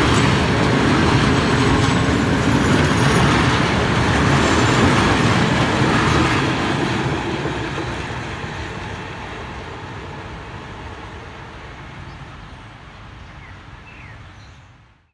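Freight train of open coal wagons rolling slowly past, the wheels clattering on the rails. It is loud until the last wagon goes by about seven seconds in, then fades steadily as the train recedes, and cuts off at the end.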